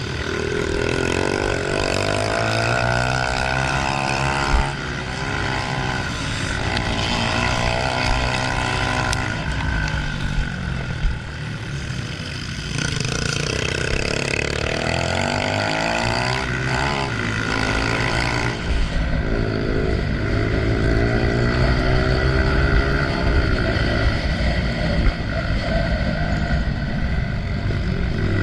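Honda CRF125F single-cylinder four-stroke dirt bike engine under load, its pitch rising and falling again and again as the throttle is opened and closed through the gears.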